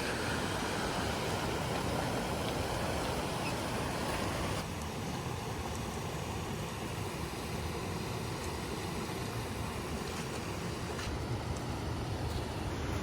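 Waterfall and creek swollen by days of heavy rain, rushing steadily. The level dips slightly about four and a half seconds in.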